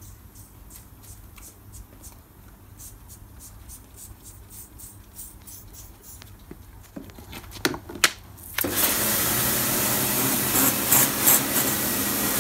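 A trigger spray bottle squirting disinfectant in a run of short sprays, then two sharp knocks. About nine seconds in, a pressure washer comes in with a loud, steady hiss as its jet blasts water onto the wire cage.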